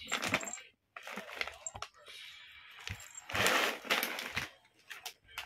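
Plastic bag of dry cat food crinkling and rustling as it is handled, in irregular crackles, loudest about three and a half seconds in.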